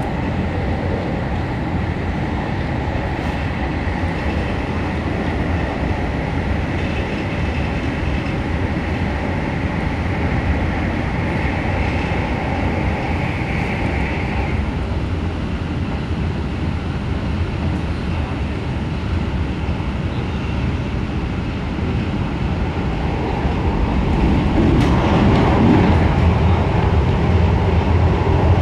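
Inside an MTR K-Train electric multiple unit while it runs: a steady rumble of wheels and running gear on the track. A faint high whine runs through the first half and stops about halfway. The noise grows louder near the end.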